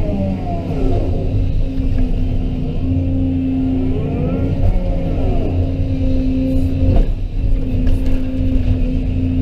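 Excavator's diesel engine running steadily under load, with a higher whine that rises and falls in pitch a few times as the machine works. There is a single sharp knock about seven seconds in.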